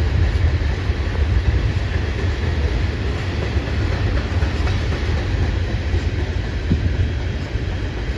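Freight train cars rolling past close by: a steady, heavy low rumble of steel wheels on the rails.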